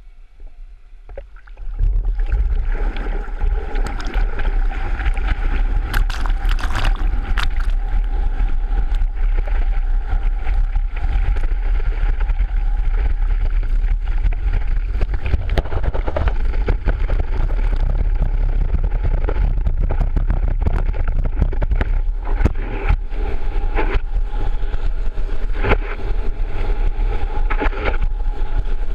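Water rushing and splashing against a camera mounted on a water ski as the skier is towed across the water, a heavy, steady low rumble. It starts suddenly about two seconds in, when the pull begins.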